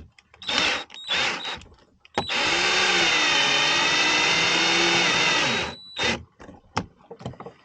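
Cordless drill driving a fixing screw for the curtain track: two short blips of the trigger, then a steady run of about three and a half seconds with a high motor whine, and one last brief blip.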